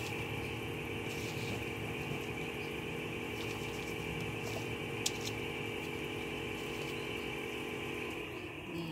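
A motor or engine running steadily at an even pitch; it winds down with a falling pitch and stops near the end. A steady high buzz continues under it, and a faint click comes about five seconds in.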